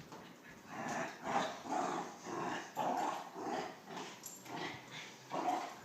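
West Highland white terrier growling and grumbling at a toy in a quick run of short bursts.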